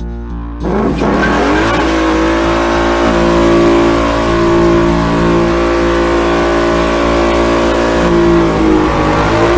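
Mustang GT's V8 revving up sharply about half a second in and held at high revs during a burnout, with the noise of the spinning rear tyres. Near the end the revs drop.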